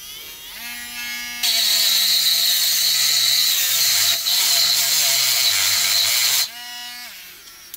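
WL-800 micro rotary grinder running with a small motor whine. A pink grinding stone is then pressed against the end of a steel nail for about five seconds, making a loud, harsh grinding noise while the motor slows under the load. The grinder runs free briefly and winds down near the end.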